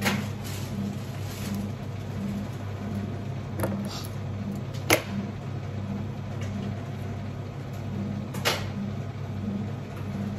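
A steady low machine hum that pulses regularly, a little under twice a second, with a few sharp clicks on top: one at the start, two around four to five seconds in (the second the loudest) and one past eight seconds.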